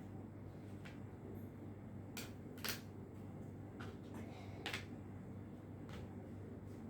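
A handful of sharp clicks and taps, the loudest about a third of the way in and again past the middle, over a low steady hum.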